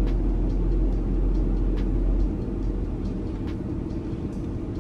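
Steady low rumble inside a car's cabin, typical of the engine idling. A little over two seconds in, the deepest part of the rumble drops away and it gets a little quieter. A few faint clicks sound over it.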